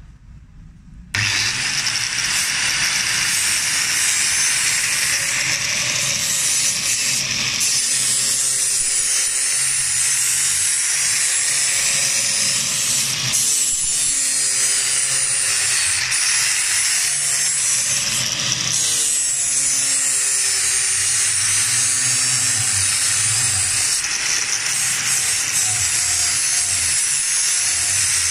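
Angle grinder starting about a second in and then grinding steady and loud with an abrasive disc along a rusty steel bar, stripping rust to bright metal. Its motor whine wavers as the disc is pressed and moved along the bar.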